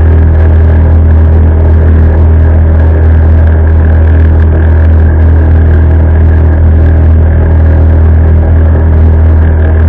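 A small motorboat's engine running at a steady cruising speed: a loud, even drone that holds the same pitch throughout.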